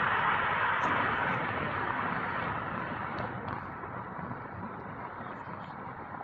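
Antonov An-124 Ruslan's four D-18T turbofan engines at takeoff power, a steady jet roar that fades as the aircraft moves away.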